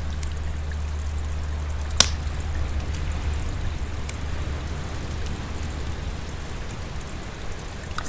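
A steady low rumble and hiss of the shore's background, with one sharp snap about two seconds in as sprigs of rock samphire are broken off by hand, and a few fainter ticks.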